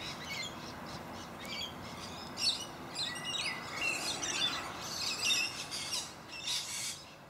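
A chorus of several birds chirping and calling at once, with many short, overlapping calls that come and go throughout.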